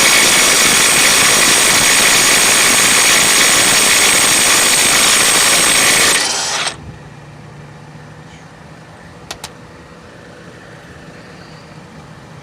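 Milwaukee M12 Fuel Stubby 1/2" cordless impact wrench hammering steadily on a 36mm axle nut for about six seconds, trying to break it loose, then stopping abruptly. Two short clicks follow a few seconds later.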